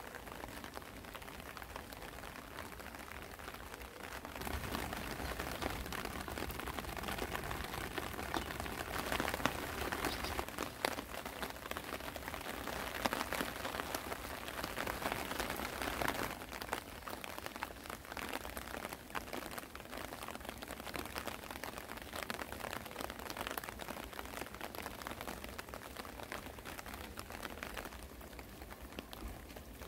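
Spring rain falling steadily: an even hiss thick with small drop ticks, swelling a few seconds in and easing a little after the middle.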